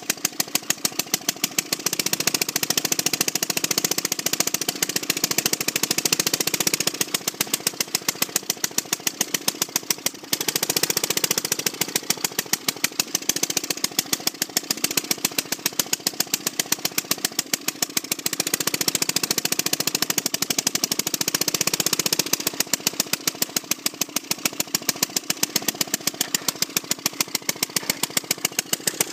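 Two-stroke Evinrude engine of a circa-1920 Merry Garden Auto Cultivator running, a fast, even train of firing pops that grows louder and quieter in several long swells.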